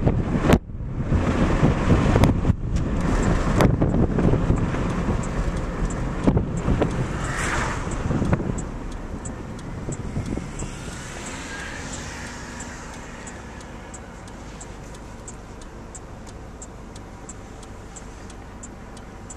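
Wind rushing and buffeting over the microphone through an open car window while driving, with a few sharp knocks. About eight seconds in, the car slows and the wind dies down to a quieter steady road rumble, with a light regular ticking about twice a second.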